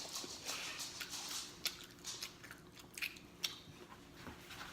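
A person chewing and smacking on pizza: irregular wet mouth clicks and lip smacks.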